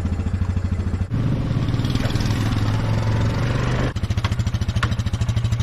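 Heavy equipment engine running with a rapid, even firing pulse. It revs up for about three seconds in the middle, then drops back toward idle.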